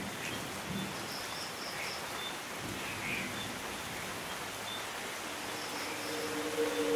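Steady hiss of rain, with a few faint short high chirps now and then. Near the end a steady low tone starts to swell in.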